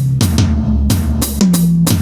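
Aroma TDX-15S electronic drum kit played in a steady groove: kick, snare and cymbal hits several times a second over a low pitched line that steps down in pitch.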